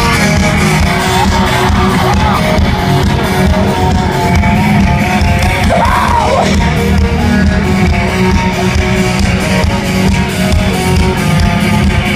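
Live rock band playing the instrumental intro of a song, guitars and drums loud and steady, with yelling heard over the music.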